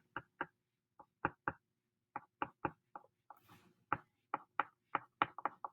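Quick, short drawing strokes on paper, flicking in blades of grass: a string of faint, uneven ticks and scratches, a few each second.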